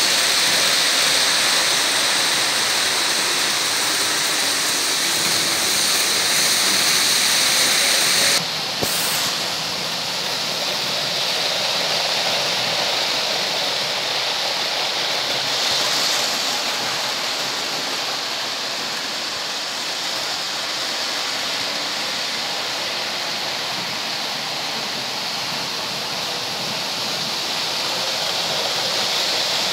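Märklin H0 model trains running on tinplate M-track: a steady rushing rumble of metal wheels rolling on the pressed-metal rails. The tone changes suddenly about eight seconds in and then carries on slightly quieter.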